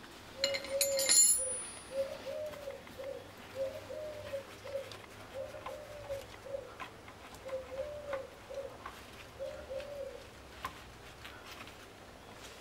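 A pigeon cooing, repeating the same low phrase about seven times. Near the start there is a brief, loud metallic clatter.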